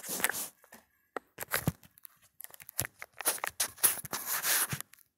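Handling noise: a scattered run of clicks, taps and crinkly rustles as a shrink-wrapped trading-card box is handled and set in place, busier in the second half.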